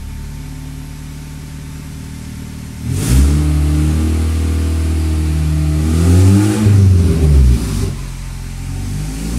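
Turbocharged Honda Accord engine idling steadily, then revved up from about three seconds in, swinging up and down and dropping back before climbing again near the end. It is running with the charge pipe off, on its first run after a new clutch was fitted.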